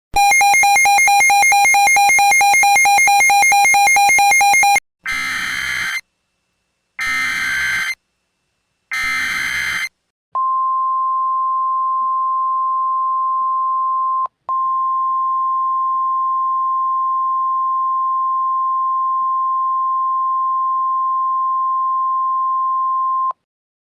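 Emergency alert signalling for a NOAA Weather Radio alert. First a harsh buzzing tone for nearly five seconds, then three one-second bursts of warbling SAME header data, then the steady 1050 Hz weather radio alert tone for about thirteen seconds, with a short break about four seconds into it.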